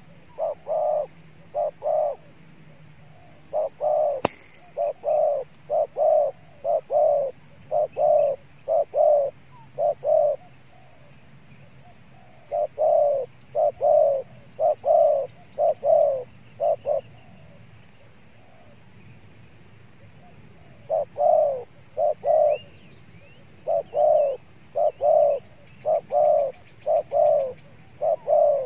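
Spotted dove cooing: short coo notes, about two a second, in long runs with pauses of a few seconds between them. A single sharp click comes about four seconds in.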